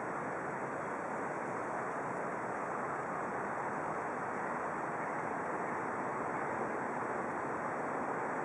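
Steady rushing outdoor ambience with no distinct events: an even wash of noise, a mix of wind, water and distant traffic.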